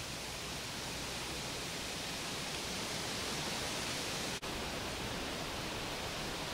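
Steady, even hiss of outdoor background noise, with no distinct events, broken by a brief dropout about four and a half seconds in.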